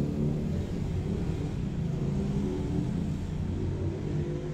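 A steady low motor hum with several pitched lines that waver slightly in pitch.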